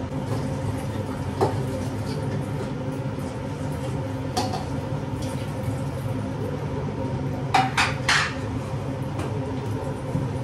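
A pan and utensils knocking and clinking: single clinks now and then, then three quick ones about three-quarters of the way through. Under them runs the steady hum of a kitchen chimney's extractor fan.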